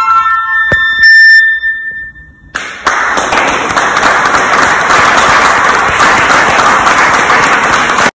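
Transverse flute playing the final notes of a piece, ending on a held high note. Audience applause breaks out about two and a half seconds in and goes on steadily.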